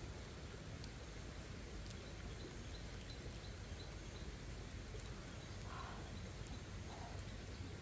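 Faint biting and chewing on a grilled chicken wing over a steady low outdoor background hiss, with a few soft clicks and two short mid-pitched sounds near the end.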